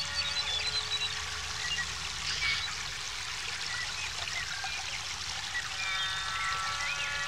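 Ambient music: several held tones sounding together over a steady trickling of running water, with short high chirps scattered through.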